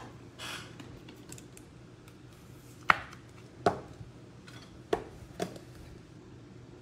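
Four sharp plastic clicks and taps, spread over about two and a half seconds starting three seconds in, as a trading card is closed into a hard plastic card holder and the holder is set on an acrylic stand.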